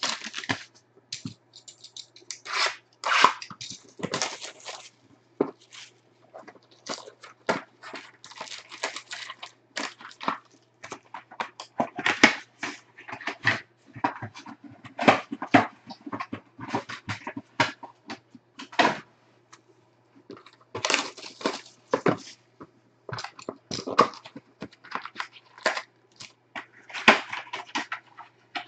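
Foil-wrapped basketball card packs crinkling and crackling as they are handled, pulled from their hobby box and stacked, in irregular rustles and crackles.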